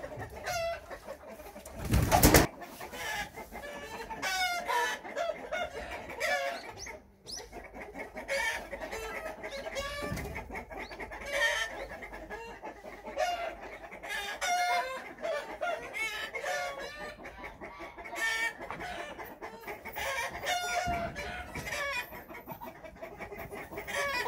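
Chickens clucking again and again in short calls, with a loud thump about two seconds in.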